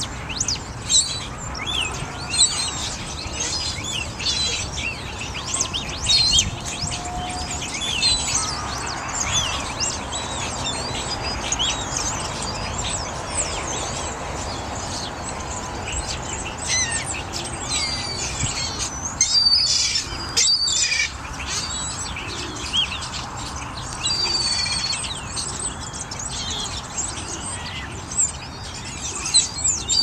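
A flock of birds at a feeding calling over one another: a dense chatter of many short, high chirps, louder for a moment about twenty seconds in.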